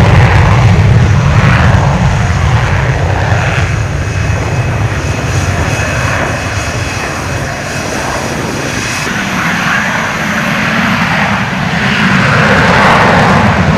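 Twin General Electric F404 jet engines of Finnish Air Force F/A-18C Hornets on the takeoff roll with afterburner: a loud, continuous jet rumble that eases a little mid-way and builds again near the end.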